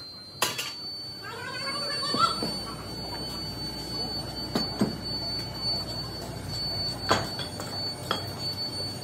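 Scattered knocks and scrapes of an iron rod worked against a freshly poured sand casting mold, with a short squeal about a second in, over a steady thin high-pitched whine.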